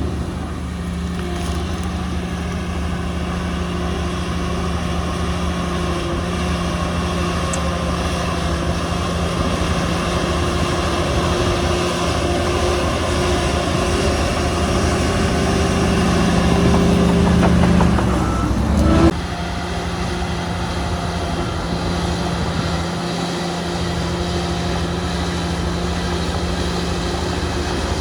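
Diesel engine of heavy earthmoving machinery running steadily under load. It grows louder until a brief rise in pitch, then drops suddenly a little past the middle and carries on at a lower level.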